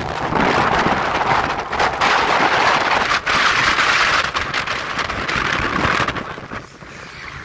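Wind rushing past and road noise from a moving vehicle, a loud steady hiss that eases off about six seconds in.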